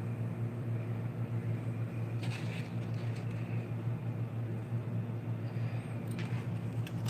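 Steady low hum of a running household appliance, with two faint short clatters, about two seconds in and again near six seconds.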